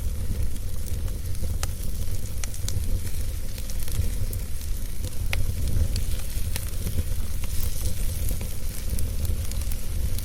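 Wood fire burning in a fireplace: a steady low rumble and hiss with scattered sharp crackles and pops.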